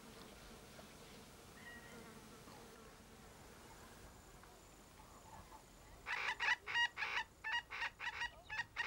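Faint outdoor background, then about six seconds in a bird calls in a quick run of about ten pitched notes, about three a second.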